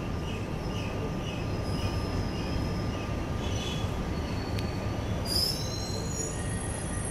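Steady low rumble of a Korean-built Cairo Metro Line 1 car standing at a platform. Faint high chirps come early, a click about four and a half seconds in, and a short high squeal that falls in pitch about five seconds in.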